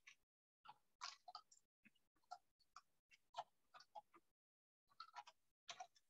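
Faint computer keyboard typing: irregular key clicks, a few a second, with short pauses between bursts.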